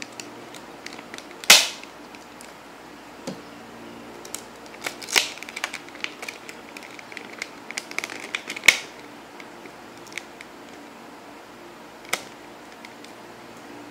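Stiff clear plastic blister packaging clicking and crackling as a 2x2 puzzle cube is prised out of it by hand. The sharp snaps are irregular: the loudest about a second and a half in, another near nine seconds, with a run of smaller ticks in between.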